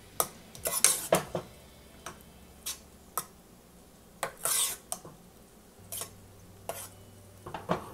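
Metal spoon stirring thick cooked mung dal in a pressure cooker pot, clinking and scraping against the pot's sides: a cluster of knocks in the first second and a half, a longer scrape about four and a half seconds in, then scattered clinks.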